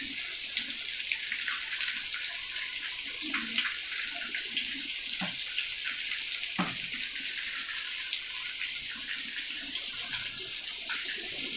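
Breaded chicken bites frying in hot oil in a pan: a steady sizzling hiss with scattered crackles. Metal tongs click against the pan a few times, loudest about six and a half seconds in.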